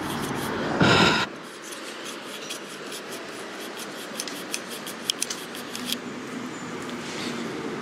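A fingertip wiping a camera lens right against the microphone: a loud scuffing rub about a second in, then quick scratchy rubbing with small squeaks and clicks.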